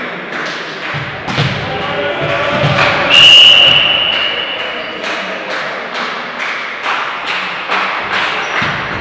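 A ball bouncing repeatedly on a sports hall floor, about two thumps a second. A referee's whistle blast comes about three seconds in, a single steady high note that dies away slowly in the hall.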